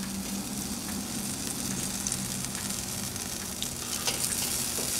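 Chicken drumsticks sizzling and crackling on the hot grate of a charcoal kettle grill, over a Vortex ring full of glowing coals.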